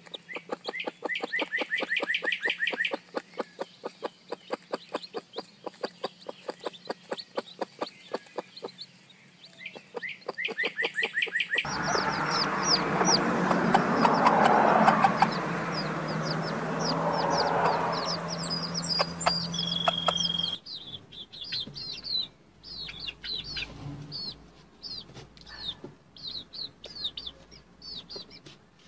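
Broody mother hens clucking in a fast run while their chicks peep in high, short, falling notes. The sound changes twice as the clips change, about 12 s and 20 s in.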